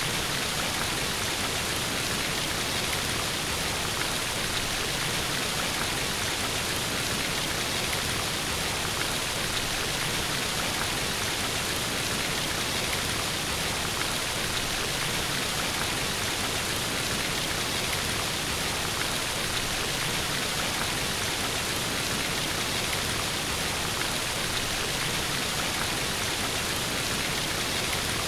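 Waterfall sound effect: a steady, unbroken rush of falling water with no changes or other events.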